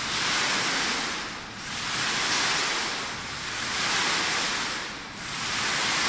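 Falling water of a large circular digital waterfall (a computer-controlled water curtain) splashing down, a rushing hiss that swells and fades about every two seconds.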